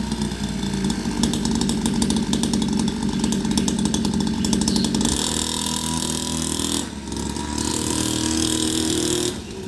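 Trail motorcycle engine running steadily, its note changing about five seconds in and dipping briefly near seven seconds.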